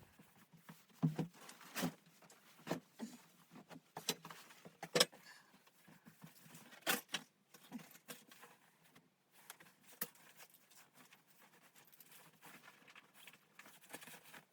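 Faint, irregular clicks and knocks, several louder ones in the first half and fewer later, as of small objects being handled.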